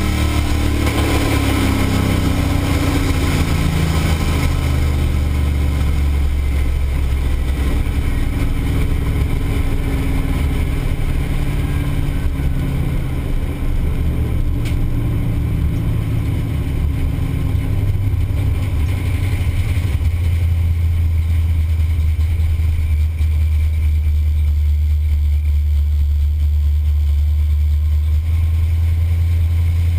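Pontiac 455 V8 in a Buick wagon, heard from inside the cabin, winding down off the throttle at the end of a drag-strip pass, its pitch falling over the first several seconds. It then settles into a steady low rumble as the car rolls slowly off the track.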